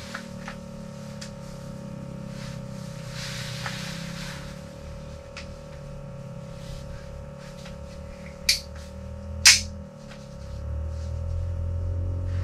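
Steady low hum with a faint steady tone, and two sharp clicks about a second apart just past the middle, the second louder.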